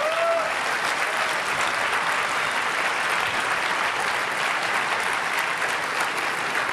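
Large audience applauding steadily in a big hall, with a short rising-and-falling whoop from one voice at the start.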